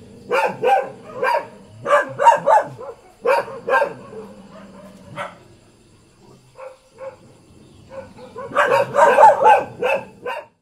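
Several village dogs barking in short bursts, with a lull and a few faint barks around the middle, then a dense flurry of overlapping barks near the end.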